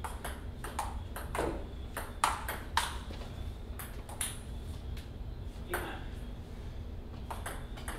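Ping pong ball clicking off paddles and the table in a rally, hits at an irregular pace with the two loudest a little over two seconds in and fewer hits after about four seconds.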